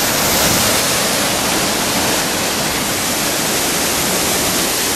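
Steady, loud rush of white water from a waterfall and a mountain stream tumbling over boulders.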